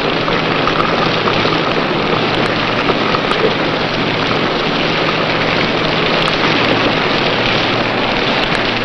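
Steady heavy rain in a squall, a dense even rushing hiss, with a low steady hum underneath.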